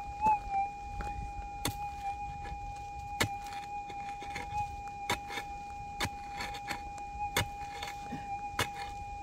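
A prospecting pick striking into stony, gravelly soil, a sharp hit about every second, over the steady high-pitched tone of a running gold detector left lying beside the dig.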